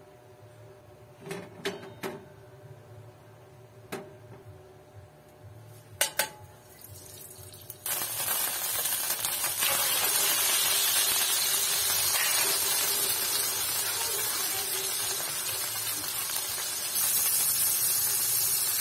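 A few sharp clicks and knocks, then about eight seconds in a sudden loud sizzle as raw chicken breasts go into hot oil and butter in the pan. The frying hiss then holds steady, growing a little louder near the end.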